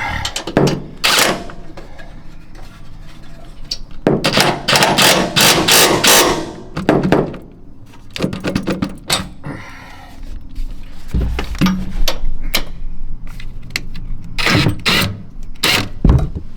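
Metal knocks, clanks and scraping from the fold-out steps and their mounting hardware being handled, with a run of rapid clicking and rattling about four seconds in and scattered thuds.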